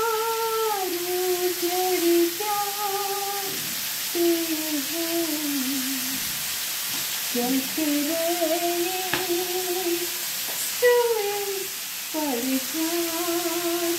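A woman humming a slow tune in long, gliding notes over the steady sizzle of chicken pieces shallow-frying in butter in a pan. There is one sharp click about nine seconds in.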